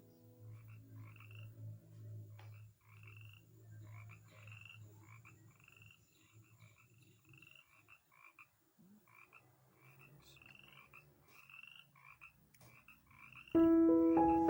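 Frogs calling faintly: short upturned chirps repeating several times a second, over a low steady hum that fades out partway through. Piano music comes in loudly near the end.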